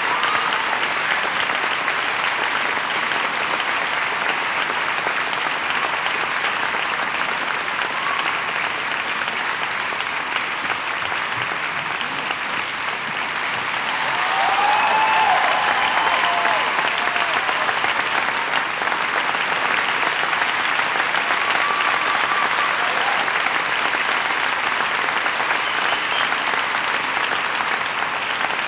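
Theatre audience applauding steadily, swelling slightly about halfway through with a few voices calling out.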